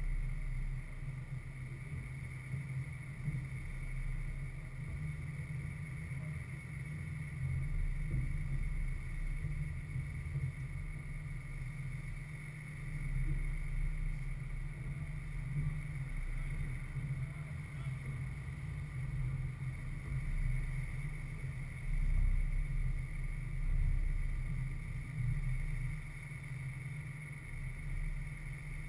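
Wind buffeting the microphone of a camera in open stadium stands: an uneven low rumble that swells and eases in gusts, over a faint steady hiss.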